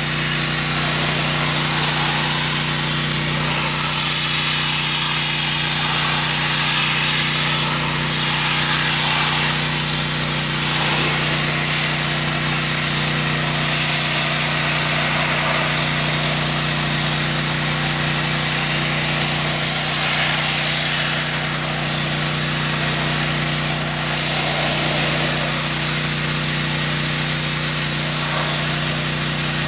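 Pressure washer running steadily with a constant hum, its high-pressure water jet hissing as it blasts the wet log wall.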